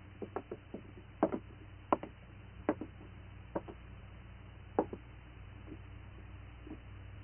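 A series of light, irregular knocks and clicks, several in the first two seconds and then about one a second, thinning out after about five seconds, over a steady low hum.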